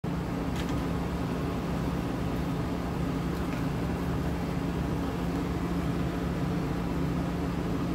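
Steady low mechanical hum with a constant droning tone, from a running machine, with a couple of faint ticks.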